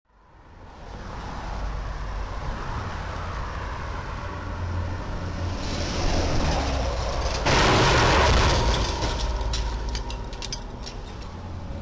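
Street traffic noise with a low rumble, fading in at the start. A box delivery truck speeds past close by: its noise swells about six seconds in and is loudest for about a second, then eases off with a scatter of faint clicks and rattles.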